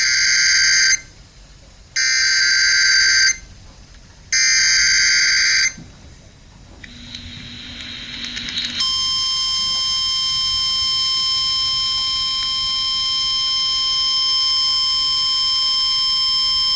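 Emergency weather alert: three buzzy digital data bursts, each about a second long and about a second apart, then after a short gap a steady single-pitch alarm tone held for about nine seconds. This is the NOAA Weather Radio alert header and warning alarm tone that comes before a National Weather Service warning.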